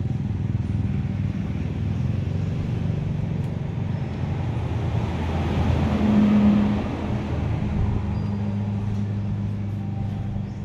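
Kubota ZL1-315 tractor's four-cylinder diesel engine idling steadily, with a brief swell about six seconds in.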